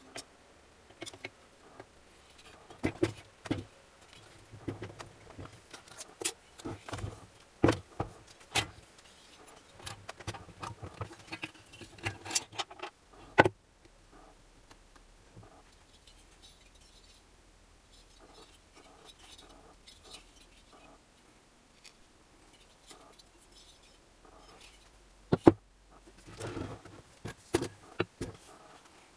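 Metal engine parts and hand tools clinking and knocking as they are handled and set down: a run of sharp clinks, a quieter spell in the middle, then a loud knock and more clinks near the end.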